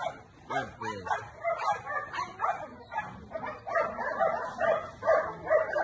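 Dog barking over and over in a steady rhythm, about two barks a second.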